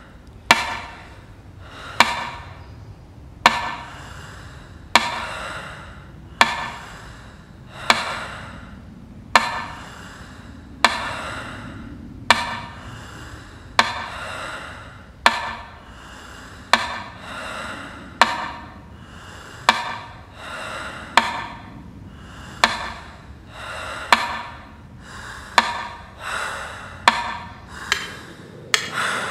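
Mechanical metronome ticking slowly, about one tick every second and a half, each tick ringing out in a long, echoing tail. Over the last few seconds the beat quickens to nearly twice as fast.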